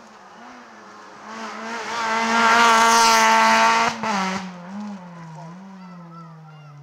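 Rally car passing at full throttle. Its engine rises to a loud peak from about two to four seconds in, then drops in pitch and fades as the car goes away up the road.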